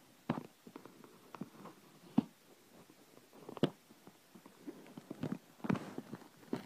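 Scattered clicks and taps of a plastic DVD case being handled close to the microphone, sharpest about two and three and a half seconds in, with a cluster of handling noise around five to six seconds.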